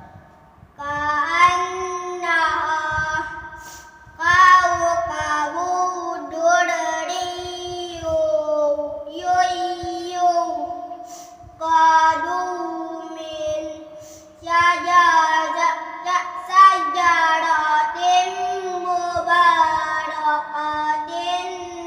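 A high-pitched voice chanting the Qur'an in melodic recitation (tilawah), in long held, ornamented phrases broken by short pauses for breath.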